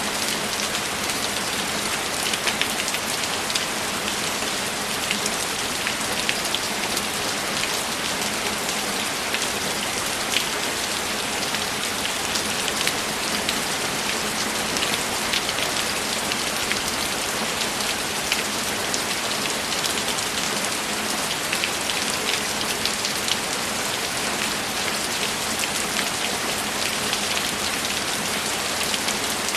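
Steady rainfall, a constant hiss with many small, distinct drops pattering on a surface.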